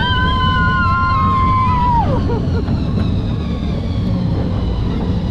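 A young child's long, high yell, held about two seconds and then dropping in pitch as it ends, over the steady low rumble of a small ride train running.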